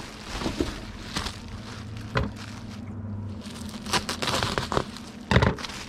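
Plastic bubble wrap crinkling and rustling as it is handled and folded around a DVD case, with two sharper crackles or knocks.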